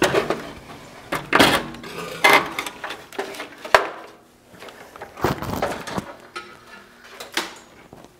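Irregular clanks and rattles of metal parts being handled and shifted around the front end of an old pickup truck, with one sharp click a little under four seconds in.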